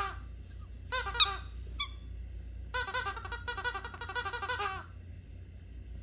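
Rubber squeaky toy squeaked by a dog biting and chewing it: a few separate squeaks, then a fast run of squeaks for about two seconds that stops about a second before the end.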